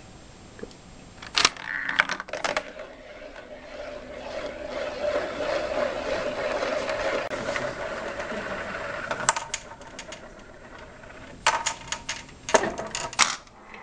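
Homemade Rube Goldberg chain-reaction machine running: a few light clicks, then a steady rolling whir for several seconds, then a quick run of clattering knocks near the end.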